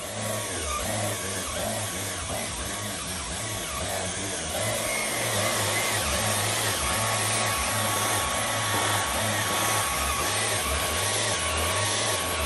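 Dyson cordless stick vacuum running steadily, a rushing hiss with a thin constant whine, its nozzle held against a husky's fur.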